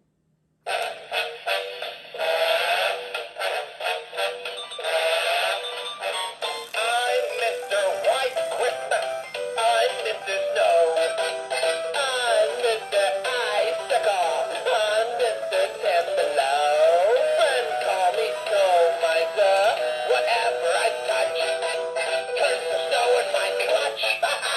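Animated spinning snowman toy playing a Christmas song with singing through its small built-in speaker, starting about a second in; thin and tinny, with no bass.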